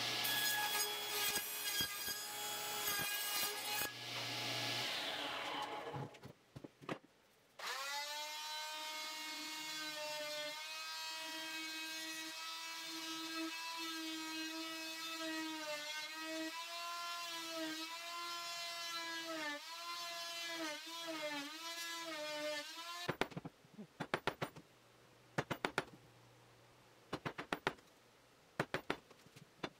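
A table saw cutting wood and winding down, then a corded electric drill boring a mortise into a wood block: a steady motor whine whose pitch sags several times as the bit bites into the wood. After the drill stops, a string of sharp knocks as the mortise is cleaned out with a chisel.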